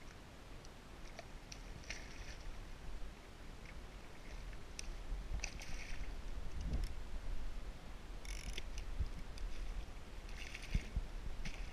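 Water slapping and splashing around a kayak, in a few short bursts over a steady low rumble of wind on the microphone.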